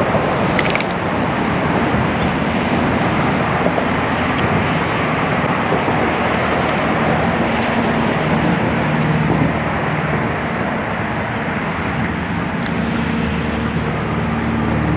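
Boat motor running steadily: a constant engine hum under a rushing noise, with the hum coming up more clearly about halfway through.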